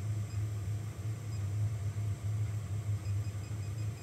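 Steady low hum of the Elegoo Neptune 4 Pro 3D printer's cooling fans, wavering slightly in level while the machine sits powered on.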